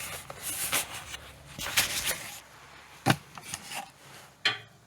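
Rubbing and scraping noises broken by a few light knocks, as of objects being handled.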